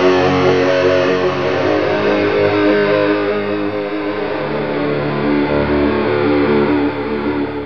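Intro music led by electric guitar, fading out near the end.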